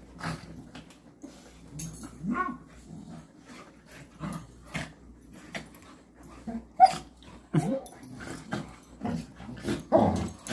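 Dogs play-wrestling: scattered short yips and whimpers over scuffling, with the sharpest, loudest yip about seven seconds in.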